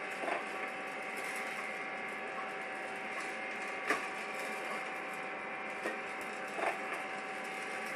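Gene Cafe CBR-101 home coffee roaster running just after the start of a roast: a steady motor and fan hum with a thin whine, and the beans tumbling in its rotating glass drum. A few sharp clicks stand out, the loudest about four seconds in.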